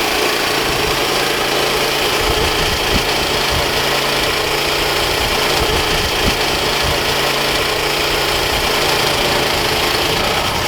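Woodland Mills HM122 portable bandsaw mill running steadily, its gas engine driving the band blade through a log to cut a 2x4 board.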